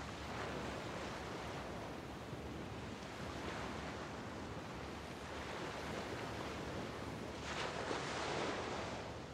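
Small waves from the bay washing onto the beach in a steady hiss of surf. The wash swells three times, the largest near the end.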